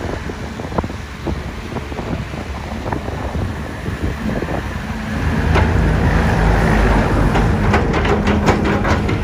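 XCMG XE215C excavator's diesel engine running under hydraulic load, louder from about five seconds in as the bucket works. Scattered knocks and clicks from the bucket and the vegetation and debris it handles, with a quick run of sharp ticks near the end.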